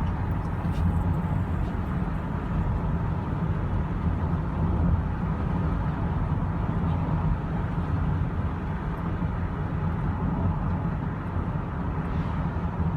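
Steady road and drivetrain rumble inside the cabin of a 2013 Honda Odyssey minivan while it is being driven.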